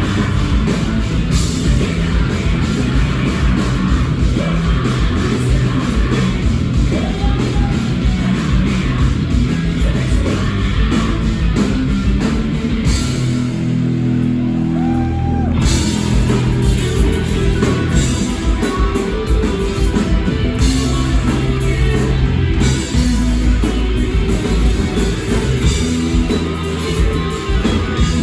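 Rock band playing live and loud, with guitars, drums and singing. About halfway through, the drums drop out for a couple of seconds, leaving low held notes, and then the full band comes back in.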